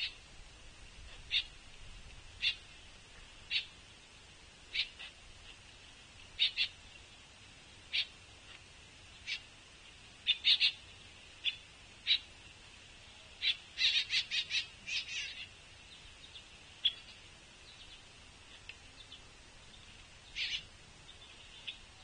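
Juvenile pileated woodpecker giving short, hoarse begging calls to be fed by its parent. The calls come about one a second at first, then in a quick run of several two-thirds of the way through, with a last pair near the end.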